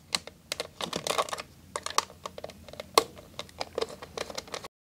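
Small Phillips screwdriver turning screws out of the plastic back shell of an animatronic toy: a run of irregular small clicks and ticks, with one sharper click about three seconds in. The sound cuts off suddenly near the end.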